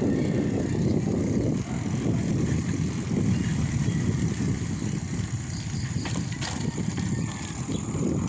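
Steady rumbling wind and road noise of a bicycle being ridden along a concrete road, with a couple of faint ticks about six seconds in.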